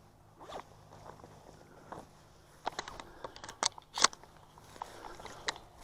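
Footsteps crunching through dry field cover, with scattered crackles and a quick cluster of sharp snaps and clicks about three to four seconds in.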